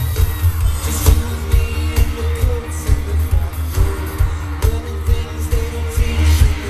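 Live pop band playing loud amplified music: a steady heavy bass-drum beat under electric guitar and keyboards, with a male lead vocal over it.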